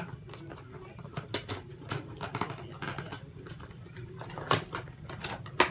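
Hands untwisting the wire twist ties that hold a toy car in its box, with the packaging being handled: scattered small clicks and scratchy rustles, and one sharper click near the end.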